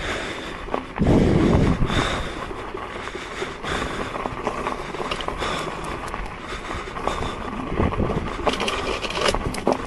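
Electric unicycle ridden off-road: tyre rumble with scattered knocks over rough ground and wind noise on the microphone, loudest about a second in, with a faint steady high whine underneath.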